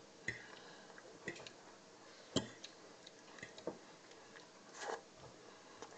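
A fork clicking and tapping against a plate, about five separate clicks with the strongest about two and a half seconds in, with chewing between them.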